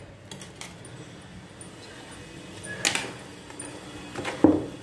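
Thick rice-flour and jaggery dough being stirred in an aluminium pot with a wooden spoon, with a few knocks and scrapes of the spoon against the pot, the loudest about three seconds in and just before the end.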